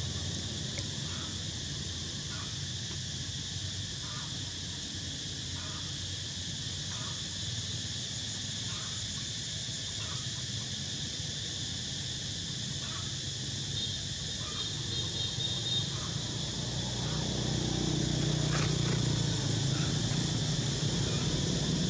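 Steady high-pitched drone of insects, with faint regular chirps about once a second. A low rumble grows louder in the last five seconds.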